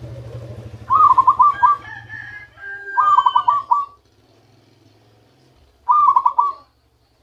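Zebra dove (perkutut) cooing its song: three phrases of quick, stuttering notes, about a second in, about three seconds in and about six seconds in.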